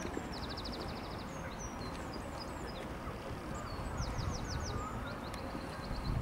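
Small songbirds singing: a fast trill of about a dozen quick notes near the start, scattered chirps, then a run of sharp falling notes about four seconds in and a shorter trill near the end. Under it runs a steady low rumble of wind on the microphone.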